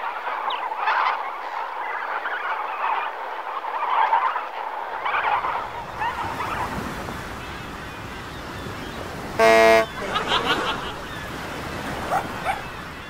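Waterfowl calling, with short honking and cackling calls over the first few seconds. A low vehicle rumble then takes over, and about halfway through there is one short, loud horn toot.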